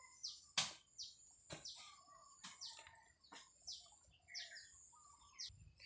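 Small birds chirping, a steady run of short falling notes, several a second. A few sharp knocks cut in, the loudest about half a second in.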